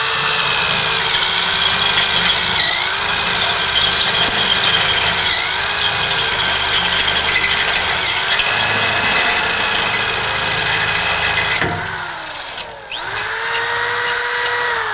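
Power drill driving a step bit through a steel bumper: a steady motor whine that sags in pitch three times as the bit bites into the metal. It stops about twelve seconds in and starts up again a second later.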